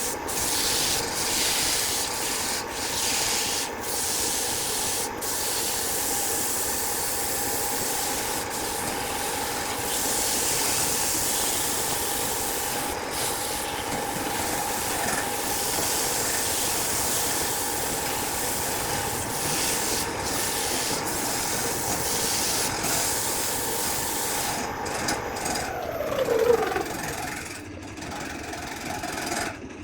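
Wood being sanded or abraded with a power tool, a steady scratchy rubbing over a running motor hum. About 26 seconds in the motor's pitch drops as it spins down, and the sanding noise breaks up.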